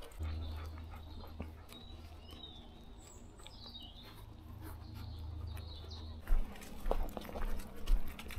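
A few faint small-bird chirps over a low steady rumble, then footsteps on a path starting up again about six seconds in.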